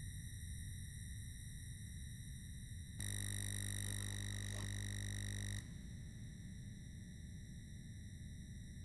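Steady electronic whine and hum with no speech: a high tone with evenly spaced overtones over a low buzz, the buzz stepping louder for a few seconds around the middle.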